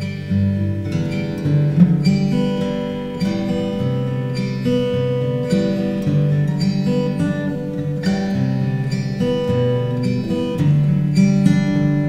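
Acoustic guitar music, with the chords changing about once a second.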